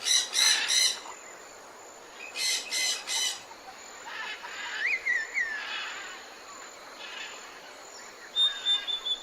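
Animal calls outdoors: short, harsh, high notes in quick runs of three or four, then a brief chirp and, near the end, a thin high whistle.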